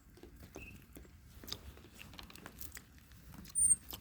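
Deer chewing and crunching feed, irregular bites and crunches. A few faint short bird chirps, and a brief louder sound near the end.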